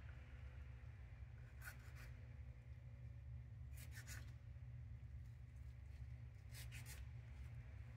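A kitchen knife slicing cherry tomatoes held in a gloved hand: three faint, short cutting sounds about two to three seconds apart, over a low steady hum.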